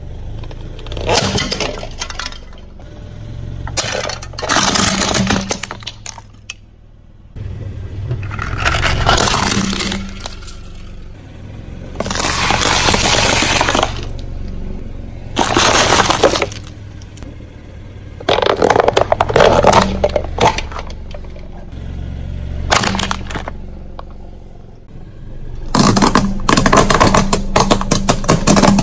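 A car tyre rolling over and crushing brittle objects: repeated bouts of crunching and cracking, each a second or two long, over a low rumble. Near the end comes a dense run of small sharp cracks.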